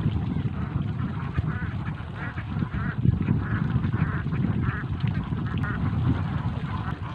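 A flock of domestic itik ducks quacking in repeated runs, busiest in the middle, over a steady low rumble of wind on the microphone.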